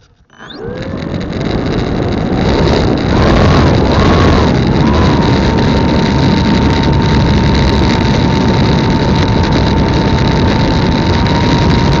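An RC Trojan T-28's electric motor and propeller spin up about half a second in. The whine rises in pitch, wavers up and down a few times as the throttle is worked, then holds one steady high note. Loud rushing prop wash and wind over the onboard microphone sit under it as the plane rolls along the ground.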